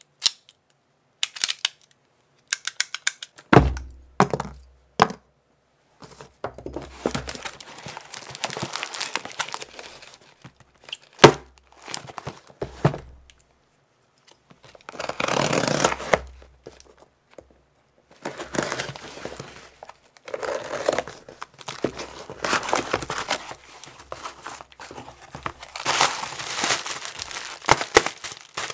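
Packaging being handled and opened: crinkling and tearing in irregular stretches, with a few sharp clicks and knocks in the first few seconds and two more about halfway through.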